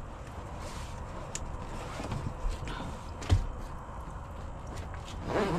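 Knocks and clatter of things being handled on a small fishing boat, with one heavier thump about three seconds in, over a steady low background rumble.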